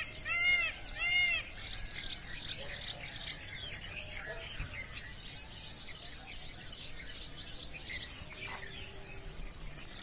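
A bird's short pitched call repeated twice at about half-second spacing in the first second and a half. Then a steady high drone of insects with scattered short bird chirps.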